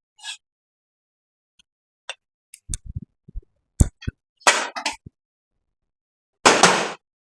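Hand tools and engine parts clinking and knocking during the removal of an engine's cylinder head, with a few dull knocks and two short scraping sounds about halfway through and near the end.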